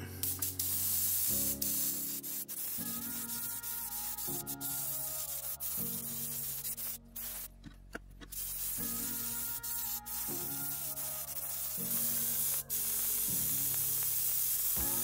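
Airbrush spraying yellow paint in a steady hiss, broken off by a pause of a second or so around the middle and by a few brief stops, over background music.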